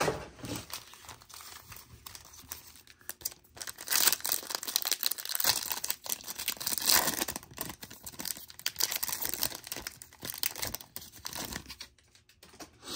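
Trading card pack wrapper being torn open and crinkled by hand. The crackling is loudest in the middle and dies away near the end.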